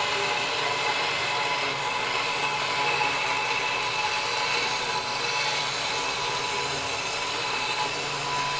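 Handheld immersion blender running steadily, submerged in a pot of vegetable soup and puréeing the chunks of squash and vegetables into a creamy soup.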